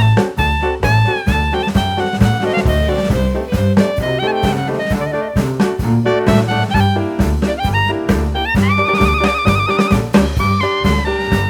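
Background music: upbeat jazz with a steady beat, bass and drums, and a melody on saxophone or other brass with a held, wavering note about two thirds of the way in.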